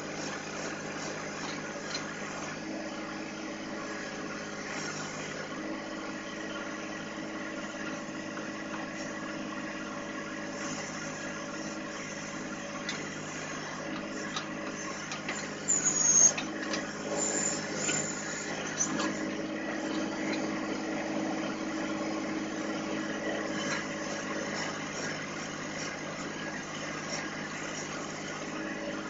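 John Deere 1025R compact tractor's diesel engine running steadily, with a brief loud high-pitched squeal about sixteen seconds in.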